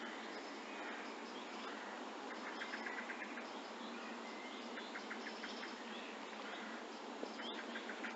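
Distant birds chirping in short, rapid trills over a steady hiss of outdoor ambience.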